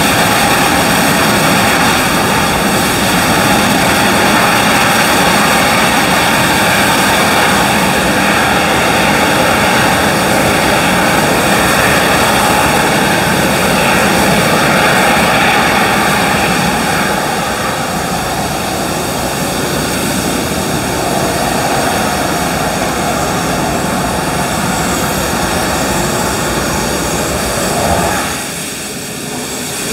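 Steam locomotive 3801 venting steam, a loud, steady hissing roar of steam escaping from low down beside its wheels. It eases somewhat past the halfway mark and drops away near the end.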